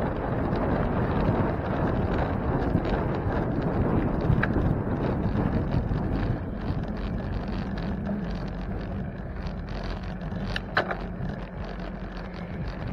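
Wind rushing over the microphone of a camera riding on a moving bicycle: a steady low rush that eases a little about halfway through, with a couple of brief clicks.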